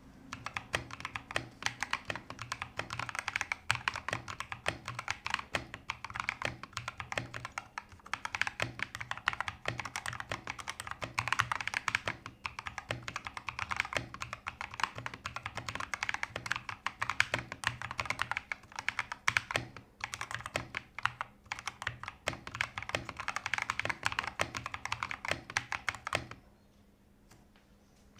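Fast, continuous typing on a modded E-Yooso Z11T mechanical keyboard with lubed Dareu Violet Gold V2 switches, giving a thocky keystroke sound. The typing stops about two seconds before the end.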